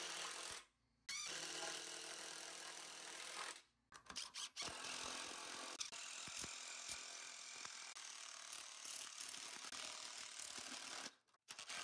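Cordless impact driver with a socket driving lag bolts into a wooden 4x4 post, hammering in a steady rattle. It stops briefly about a second in, again around four seconds in, and near the end.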